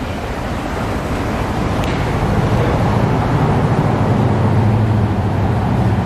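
A steady low machine drone with a rushing hiss over it, growing louder about two seconds in.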